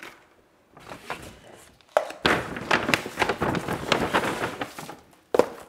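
Groceries being unpacked: plastic packaging crinkling and rustling, with punnets and packets set down on a countertop. It starts about two seconds in and runs busily for about three seconds, with one more short rustle near the end.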